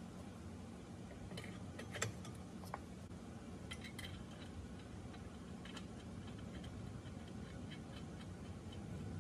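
Light, scattered metal clicks and ticks from hardware being handled by hand at a truck's walking beam end, over a steady low hum.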